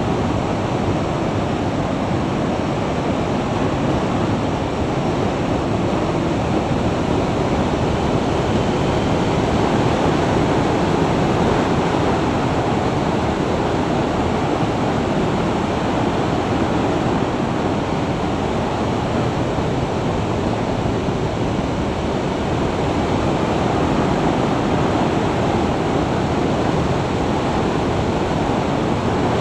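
Steady wind rush buffeting a Garmin VIRB action camera's microphone at about 55 mph, a loud, even roar with no clear engine note.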